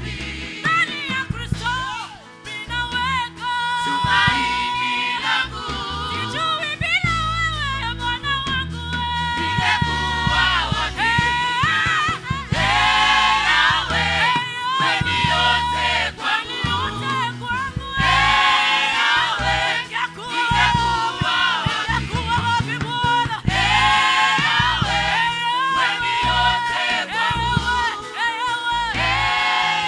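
Gospel worship song: several voices singing together over band accompaniment with a steady bass.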